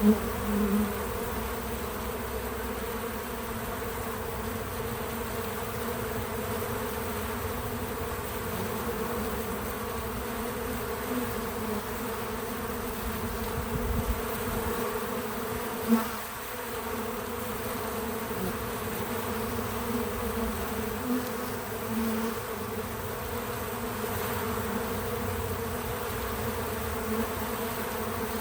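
Bees buzzing at a feeder in a steady, continuous drone. A few times, including near the start and about halfway through, a single bee passing close to the microphone briefly buzzes louder.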